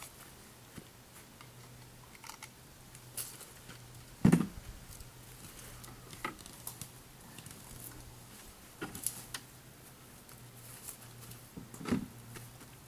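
Yard clean-up noises: scattered light clicks, rustles and knocks, with a loud dull thump about four seconds in and a smaller one near the end.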